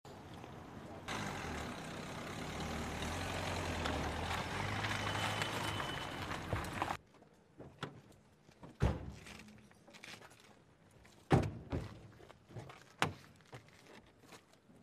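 Steady outdoor background noise with a low hum. It cuts off suddenly, and a few sharp thuds follow, typical of police car doors being opened and shut, with smaller clicks and knocks between them.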